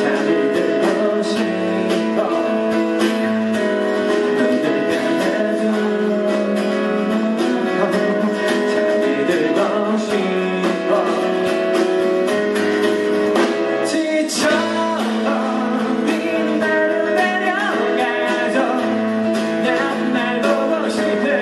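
A man singing live over his own strummed acoustic guitar.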